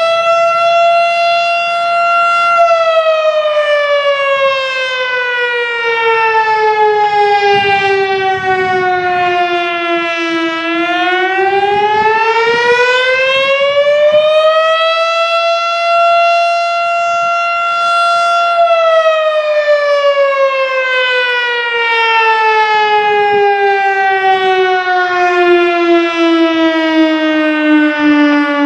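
Federal Signal STH-10 fire siren sounding in a slow wail during a routine test. It holds at its top pitch, falls slowly for about eight seconds, climbs back over about five seconds, holds briefly at the top, then falls again.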